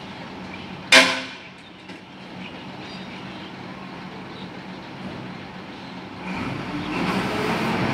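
Rear-loading garbage truck's engine idling, with one sharp metallic clang about a second in. About six seconds in the engine revs up and the rear compactor starts its cycle, growing louder toward the end.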